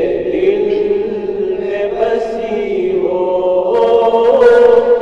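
A group of voices singing an Urdu naat in chorus, holding long drawn-out notes without words between sung lines. The held pitch steps a little higher a few times.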